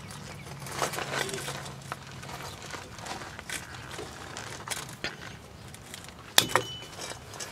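Light metallic clicks and scrapes of rear drum-brake shoe hardware being pushed and pulled by hand, with a sharper metal click about six and a half seconds in. A low hum runs underneath.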